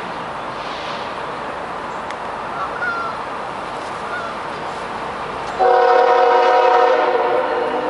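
Air horn of an approaching CSX freight train's lead locomotive, an ES44AC, sounding suddenly about five and a half seconds in as a loud multi-note chord held for under two seconds, then trailing off more weakly. Before it there is only a steady background rumble.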